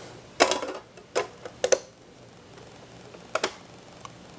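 A few sharp clicks and knocks over a low steady background: a short cluster about half a second in, two more around the one- and two-second marks, and a quick double click a little past three seconds.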